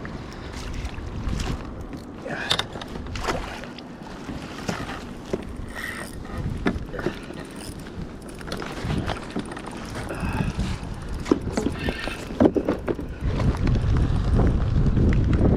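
Wind buffeting the microphone, with scattered knocks and clicks from the kayak and fishing gear; the wind grows stronger near the end.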